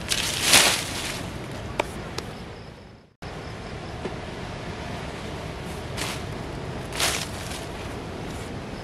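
Dry branches and leafy sticks dropped onto a pile of firewood, rustling and cracking, loudest about half a second in, with a couple of sharp snaps soon after. The sound cuts out briefly around three seconds, then two more rustling drops come near six and seven seconds.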